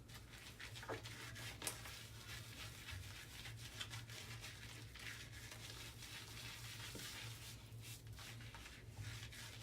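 Double-edge safety razor scraping through two days of stubble under shaving lather: quiet crackling strokes.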